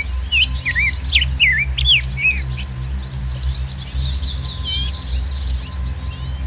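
Songbirds chirping and whistling in quick notes that rise and fall, busiest in the first couple of seconds, with a rapid trill about five seconds in.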